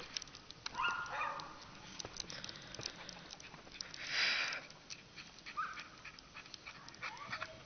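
Dogs barking and yipping in a few short calls: one about a second in, a louder, rougher bark just after four seconds, and a short yip near six seconds.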